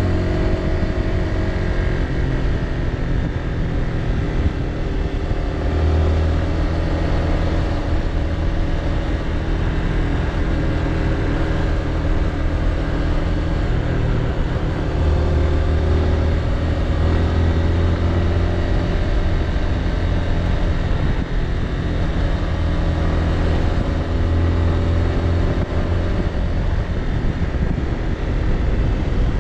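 Motorbike engine running at road speed, its pitch shifting up and down as the throttle changes on the bends, under a steady rush of wind and road noise.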